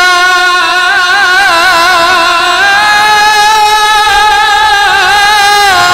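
Solo male Quran reciter's voice holding one long melismatic note in maqam Kurd, ornamented with quick trills and stepping up in pitch twice.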